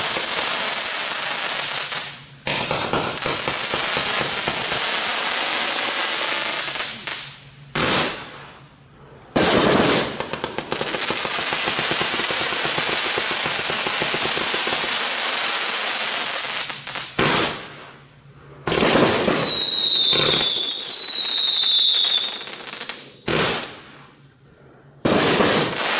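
A 115-shot, 500-gram consumer firework cake firing in long, dense volleys, broken by several short pauses. Two falling whistles sound about two-thirds of the way through.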